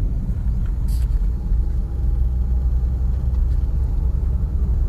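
Steady low rumble of a car's engine and tyres heard from inside the cabin while driving on a snow-covered road, with a short click about a second in.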